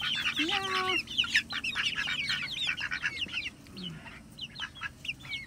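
A flock of young chickens peeping and chirping rapidly in short, high, hooked notes, with one short lower call about half a second in.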